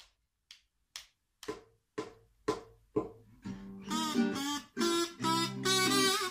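Song intro: sharp clicks keep time about twice a second, and acoustic guitar joins about a second and a half in. A fuller accompaniment with a higher melody line comes in about four seconds in.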